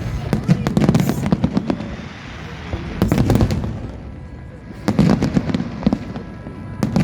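Fireworks going off in rapid crackling volleys: a dense run of bangs in the first two seconds, another cluster about three seconds in, a short lull, then more bursts about five seconds in.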